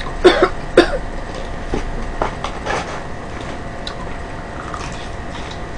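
Handling and eating fried chicken: sharp crackles and clicks as pieces are picked from the paper box and bitten, several in the first second, then sparser and quieter after about three seconds.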